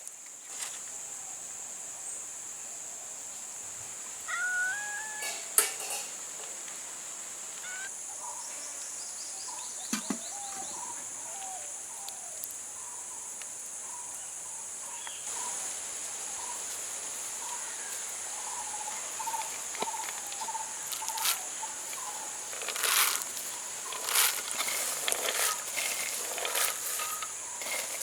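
Rural outdoor ambience: a steady high-pitched insect drone, with a few short bird chirps about four to six seconds in. Scattered clicks and knocks come more often toward the end.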